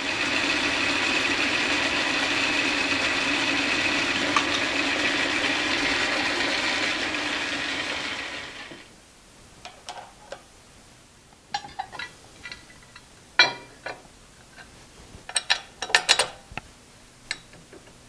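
Metal lathe running while it cuts off a turned metal plug: a steady whir with a constant hum for about eight seconds, then fading out. After that, scattered light metallic clinks and taps as metal parts are handled and set on a mill's rotary table.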